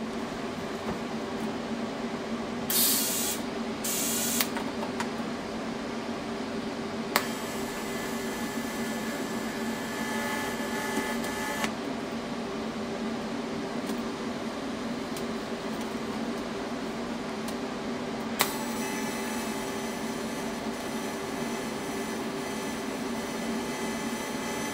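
TIG welding arc tacking steel plate: two arcs, the first struck with a sharp click about seven seconds in and held about four seconds, the second struck about eighteen seconds in and still running at the end. Each is a steady high hiss-buzz over the welding machine's constant hum. Two short noisy bursts come a few seconds in.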